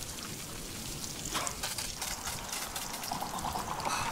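Men urinating outdoors: a steady splashing trickle of liquid hitting the ground and undergrowth.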